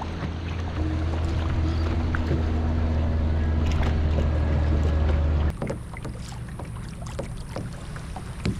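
A passing motorboat's engine running steadily with a low hum, which cuts off suddenly about five and a half seconds in. After that, light water splashes and small knocks.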